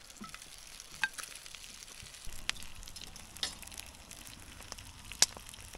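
Bacon frying in a pan over a campfire, a steady sizzle broken by a few sharp pops of spitting fat, the loudest about five seconds in.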